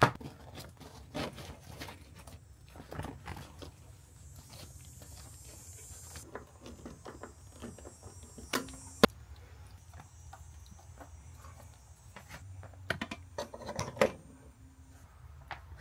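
Irregular handling noises: scattered knocks, clicks and rustling, with one sharp click about nine seconds in and a cluster of knocks near the end.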